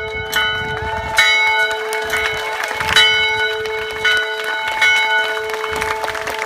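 A bell rung repeatedly: about six unevenly spaced strokes, each ringing on into the next, so the bell's tone never dies away.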